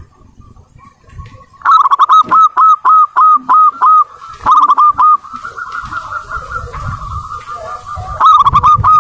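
Zebra dove (perkutut) cooing: a quick series of short, hooked notes at about three to four a second, starting about two seconds in. A softer drawn-out note follows, then a second quick series near the end.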